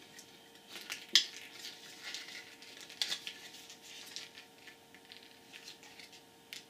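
Plastic casing parts of a dismantled pocket PC being turned over in the hands: scattered small clicks and rustles, the sharpest about a second in.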